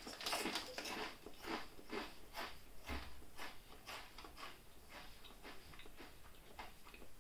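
Mouth-closed chewing of ridged potato chips: a quick run of faint, crisp crunches, about three to four a second.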